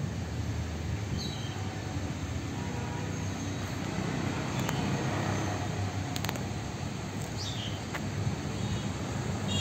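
Steady low outdoor rumble of distant traffic, with two short high chirps about a second in and again near the end.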